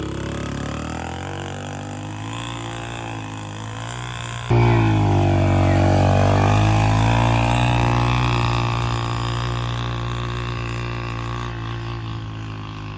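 Yamaha TT-R125 dirt bike's single-cylinder four-stroke engine pulling under load as it tows a string of tires up a hill. It gets suddenly louder about four and a half seconds in, the pitch rises and dips, then the sound slowly fades as the bike moves away.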